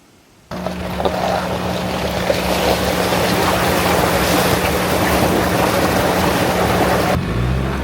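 Pickup truck driving over loose gravel: a loud, steady rush of tyre and gravel noise over a constant low engine hum. It starts suddenly about half a second in and changes near the end.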